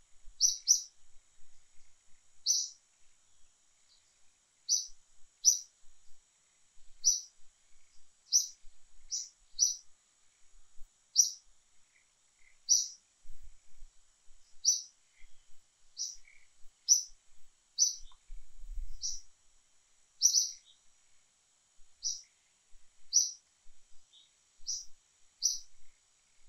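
A small bird calling with short, sharp, high chirps, single or in quick pairs, about one a second, over a faint steady high hiss.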